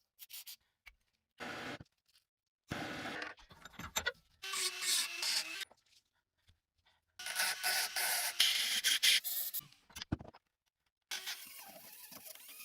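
Rust being scraped and rubbed off an old metal lock, in several short stretches of scraping that start and stop abruptly with silence between.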